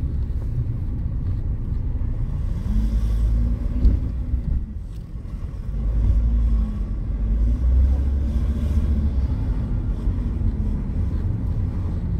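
A car driving on a city street, heard from inside the cabin: a steady low road and engine rumble whose pitch rises and falls a few times, briefly quieter around the middle. One short knock about four seconds in.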